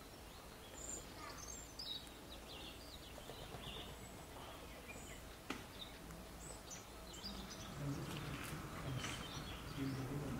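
Quiet indoor zoo enclosure ambience: a steady low hum with scattered faint chirps and small clicks. Faint human voices come in during the last few seconds.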